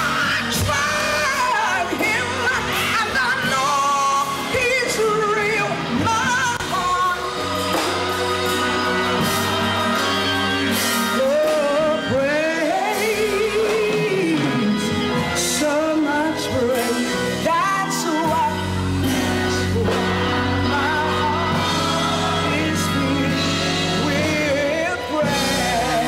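A woman singing a gospel song over live instrumental backing with steady bass and chord notes. The bass grows fuller about two-thirds of the way through.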